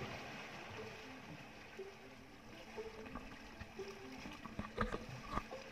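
Sea water lapping around a wooden outrigger fishing boat, with a few sharp knocks about five seconds in.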